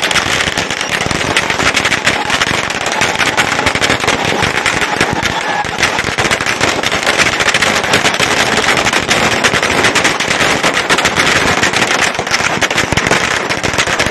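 Firecrackers bursting in a rapid, unbroken crackle, the bangs packed too close together to count.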